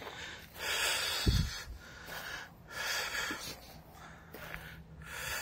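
Heavy breathing close to the microphone, three breaths about two seconds apart, with a dull thump about a second in.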